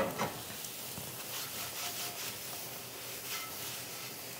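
A cast-iron skillet used as a press knocks with a short metallic clank as it is gripped on the stove. It then scrapes and shifts against the pan beneath, over a low sizzle of oyster mushroom steaks searing without oil.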